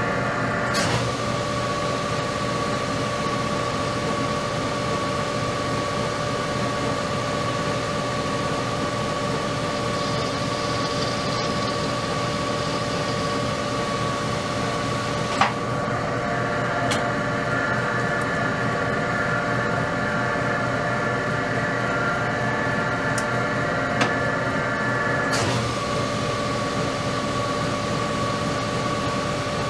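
Metal lathe running with a steady gear whine while small parts held in a 5C collet are chamfered. Sharp clicks about a second in, about halfway and near the end, each where the whine changes.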